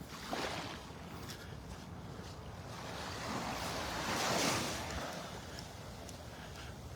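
Small Gulf of Mexico waves washing up on a sandy beach, one wave swelling in and breaking about four seconds in before drawing back.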